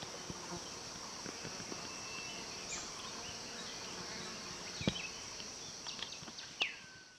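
Steady high-pitched buzzing of insects. Over it come a few faint bird chirps and a single short whistle sliding down in pitch near the end, plus one faint click about five seconds in, before the sound fades out.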